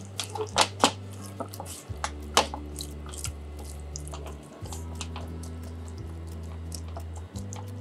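A silicone spatula clicks and scrapes against an aluminium saucepan as ground meat is broken up and stirred in simmering liquid, with small wet crackles. The taps are loudest and most frequent in the first two or three seconds. Soft background music with held low notes plays underneath.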